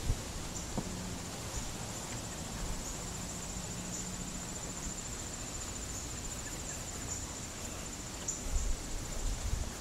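Insect chorus trilling steadily at a high pitch, with a few low bumps near the end.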